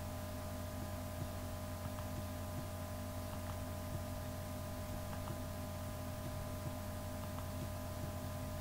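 Steady electrical hum with background hiss, a few very faint ticks over it.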